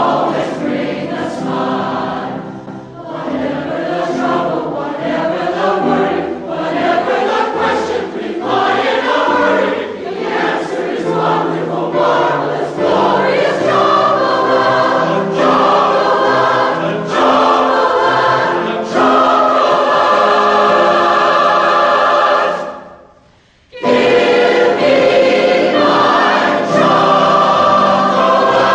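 Choral music: a choir singing held, chord-like lines. Near the end the music fades away and cuts back in about a second later.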